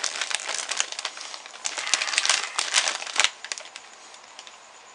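Crunchy potato chips being chewed close to the microphone: irregular crackling crunches for about three seconds, then dying down to a faint rustle.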